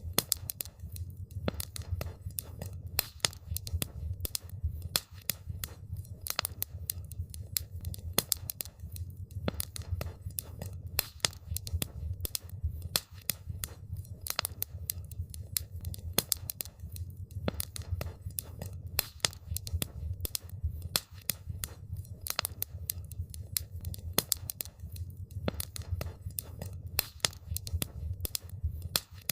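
Wood fire crackling: dense, irregular sharp pops and snaps over a steady low rumble of burning.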